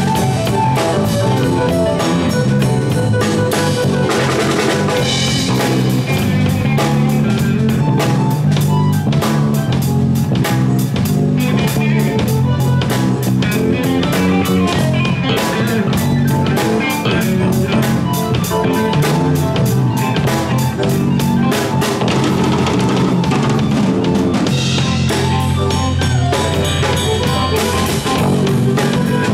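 A live band playing an instrumental rock jam: a Sonor drum kit keeps a steady, busy beat of kick, snare and cymbals under electric guitars and keyboards.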